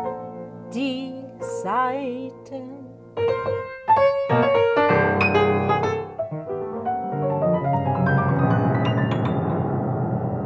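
Grand piano played in fast, dense clusters with loud attacks from about three seconds in, thickening into a sustained, ringing wash of piano tone and live-electronic sound. Before that, a woman's voice sings a few wavering notes over held tones.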